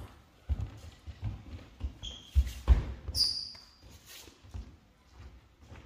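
Footsteps on a wooden sports-hall floor, irregular soft thumps, with two short shoe squeaks about two and three seconds in.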